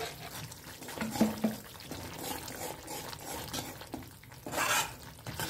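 Metal spatula stirring thick curd-and-masala gravy in a kadhai, scraping through it, with a few light knocks against the pan about a second in and a short louder scrape near the end.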